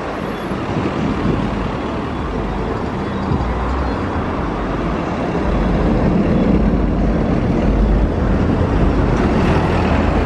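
Airliner jet engines running as the aircraft moves on the ground, a steady roar with a deep rumble that grows louder about halfway through.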